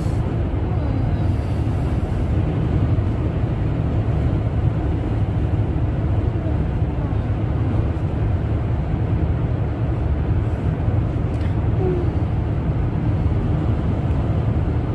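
Steady low rumble of a car heard from inside the cabin, with no sharp events.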